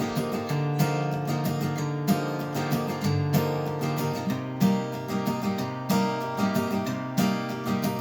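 Instrumental music: an acoustic guitar strumming chords in a steady rhythm, with no voice.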